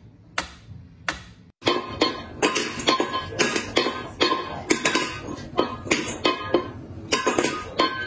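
A mechanical pendulum metronome ticking steadily, about one tick every 0.7 seconds, which cuts off about a second and a half in. Music with a quick run of clicks and knocks follows.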